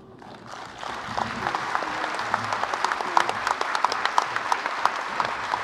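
An audience in a large hall applauding, the clapping swelling over the first second and then holding steady.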